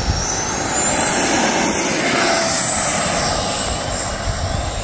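FMS F-86 Sabre's 80 mm electric ducted fan spooling up to full throttle for the takeoff run: a high whine that rises in pitch over the first second and a half, then holds steady while the jet's sound swells and eases slightly.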